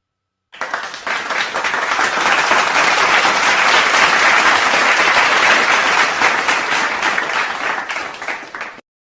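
Crowd applauding, many hands clapping at once. It starts about half a second in, swells, holds steady, and fades out near the end.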